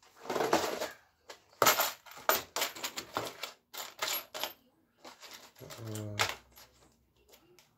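Steel washers and the axle nut clinking as they are fitted onto a Honda ST70 Dax's rear wheel axle: a quick, irregular run of sharp metallic clicks and taps.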